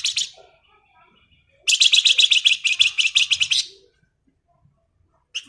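Songbird that Indonesian bird keepers call flamboyan, singing its rapid high trill ('ngebren'): a short burst at the start, a run of about ten notes a second lasting two seconds, and a brief chirp near the end.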